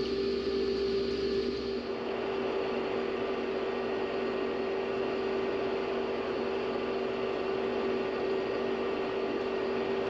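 Steady drone of a farm machine's engine and cab fan heard from inside the cab, a constant hum with a steady pitch. The deepest rumble drops away about two seconds in.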